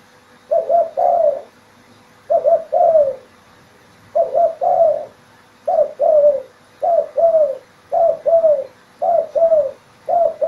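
Spotted dove cooing as a lure call. It repeats a phrase of two short coos and a longer, falling coo eight times, and the phrases come faster from about halfway through.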